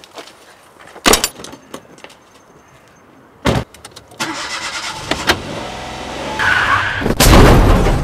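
Two doors shutting with solid thuds, then a small Toyota hatchback's engine starts and runs, growing louder toward the end with a loud rushing surge.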